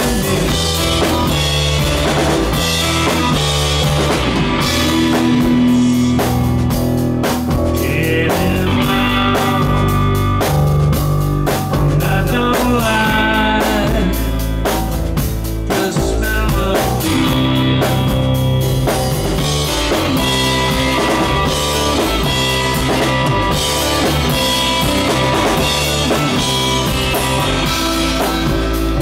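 Live rock band playing at full volume: guitar and drum kit with a steady beat, and a man singing into a microphone over it.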